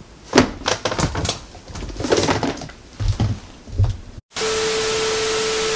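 A few irregular knocks and handling thumps. About four seconds in, a moment of silence, then a steady hiss like static with a single steady mid-pitched tone.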